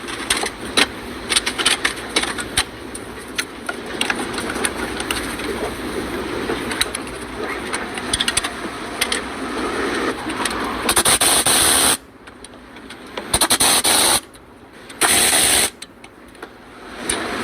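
Mechanical repair work: scattered sharp clicks and knocks of metal parts and tools, then three loud bursts of a noisy power tool, each about a second long, with short pauses between.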